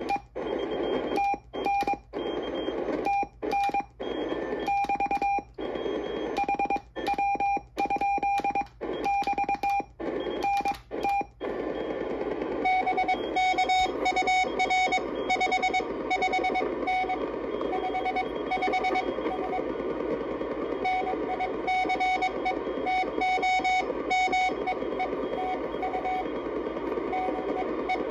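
Morse code from the Old Friend QRP CW transceiver through a small external speaker: a steady-pitched tone keyed on and off in dots and dashes over receiver hiss. For roughly the first eleven seconds the hiss drops out in the gaps between characters; after that the hiss runs steadily under the keyed tone.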